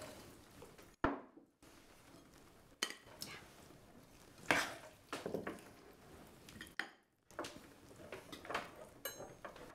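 Cutlery clinking against plates during a meal: a scattering of short clinks and scrapes, several seconds apart.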